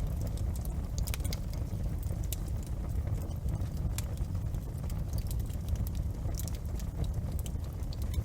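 Wood fire crackling in a fireplace: irregular sharp pops and snaps over a steady low rumble of the burning fire.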